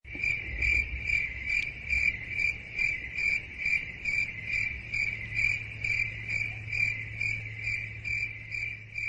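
Cricket chirping in a steady, even rhythm, about two and a half chirps a second, with a faint low hum underneath.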